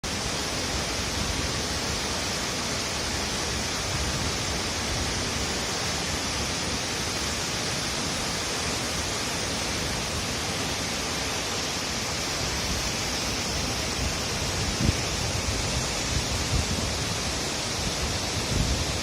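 Himalayan waterfall rushing steadily, an even hiss of falling water strongest in the high range. A few brief low thumps come about three-quarters of the way through and again near the end.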